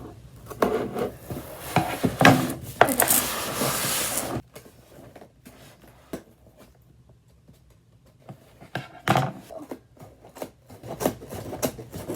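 Scissors scraping and slicing through packing tape on a cardboard shipping box, with the cardboard rubbing as it is handled. About halfway through it goes quiet for a few seconds, then scattered knocks and rustles follow.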